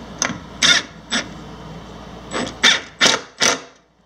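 Cordless DeWalt impact driver driving a screw in about seven short trigger bursts, the last four coming quickly one after another.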